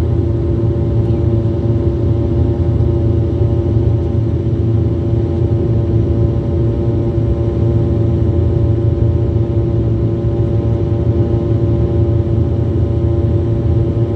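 Jet airliner cabin noise: a steady, loud low rumble of engines and airflow with a constant hum of several steady tones over it.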